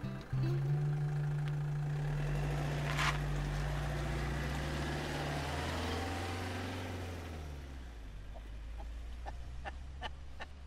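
Motorhome engine running as the vehicle pulls away and drives off. It fades after about six seconds.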